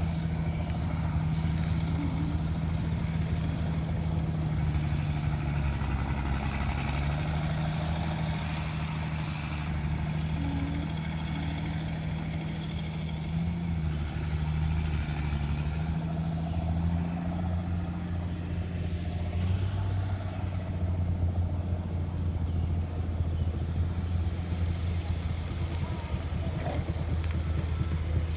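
Engine of heavy road-construction machinery running steadily, its low hum shifting slightly in pitch, with a thin high whine over it.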